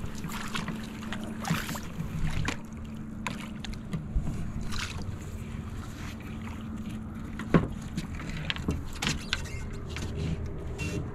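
Small sounds of a fishing boat at rest: a steady low hum with scattered knocks of gear against the hull and brief splashes as a caught catfish is handled beside the boat.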